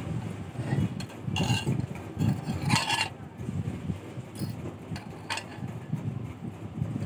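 Steel wire scraping against a metal rod as a torsion spring is wound by hand, in a few short scrapes over a steady low rumble.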